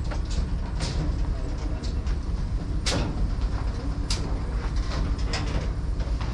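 Heavy machine engine running with a steady low rumble, with four or five sharp knocks spread through it.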